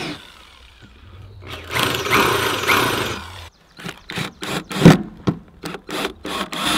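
Power drill boring into a wooden deck board for about two seconds, then a string of short drill bursts and knocks as a countersink bit recesses the hole for a screw head.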